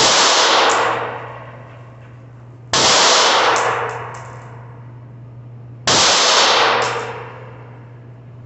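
Three 9mm pistol shots, about three seconds apart, fired at an indoor range: each is a sudden loud crack that echoes off the walls for about a second. A steady low hum runs underneath.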